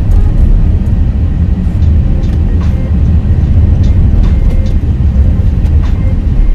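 Steady low rumble of a car driving on a highway, road and engine noise heard from inside the cabin, with a few faint ticks.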